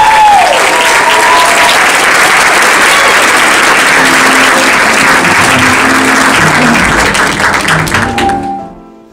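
Audience applauding loudly, with a few whoops and whistles at the start. The applause fades out near the end, leaving soft instrumental music.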